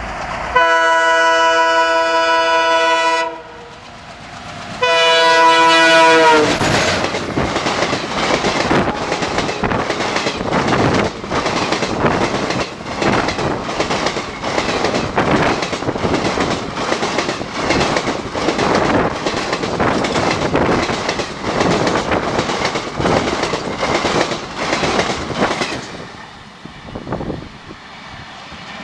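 A WDG diesel locomotive's horn sounds two long chord blasts, the second dropping in pitch as the locomotive passes. Then the express coaches rush by at speed with a rapid, regular wheel clatter over the rail joints, about two strokes a second, which fades near the end as the train recedes.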